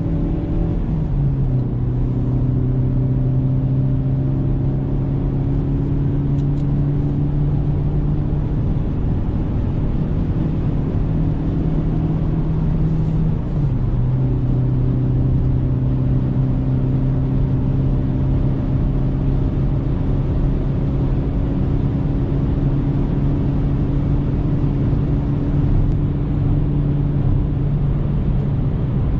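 Car engine running with a steady drone. Its pitch drops suddenly about a second in, creeps slowly upward, drops again about halfway through, then holds steady.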